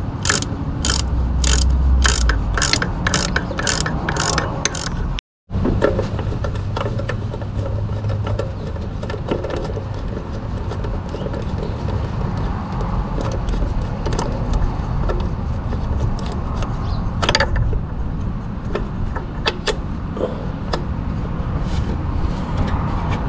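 Hand ratchet wrench clicking at an even pace, about two clicks a second, turning out a power steering pump bracket bolt. After a short break about five seconds in, only a few scattered clicks of tool handling over a low steady background rumble.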